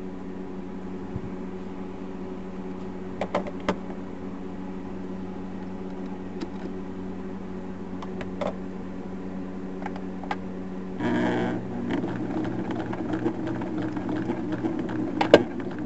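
Old electric sewing machine running, its motor humming steadily as the needle stitches through thick terry towel; about eleven seconds in it speeds up and gets louder. A few sharp pops come through, the loudest near the end, a kind of popping going on inside the machine.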